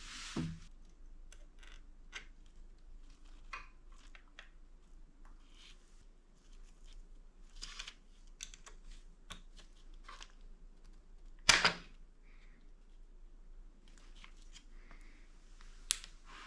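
Scattered small clicks and taps of bicycle brake parts and tools being handled, with one sharp, loud click about eleven and a half seconds in and a shorter one near the end.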